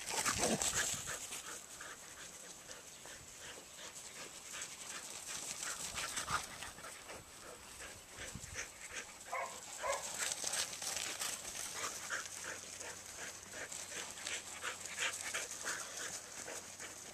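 Australian shepherd panting in a rapid, steady rhythm, out of breath from herding sheep on a hot day.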